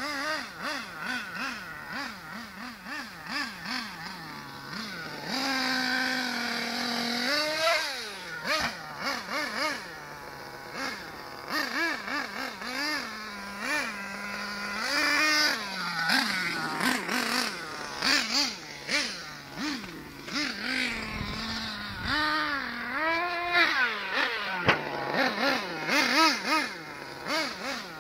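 Thunder Tiger MTA4 S50 RC monster truck's small nitro engine revving up and down in quick bursts of throttle. About five seconds in it holds a longer high-pitched run for roughly two seconds before dropping again.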